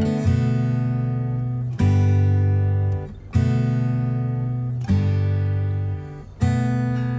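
Background music: acoustic guitar strumming slow chords, a new chord about every second and a half, each ringing out and fading before the next.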